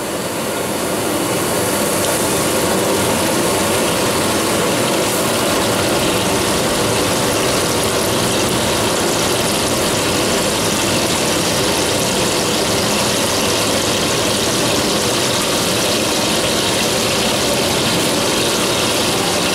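High-pressure gas burner under a large aluminium cooking pot, roaring steadily and loudly without a break.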